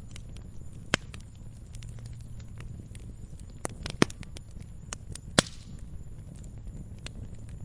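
Campfire burning: a steady low rumble of flames with scattered sharp crackles and pops of burning wood, the loudest pops about a second in, about four seconds in and about five and a half seconds in.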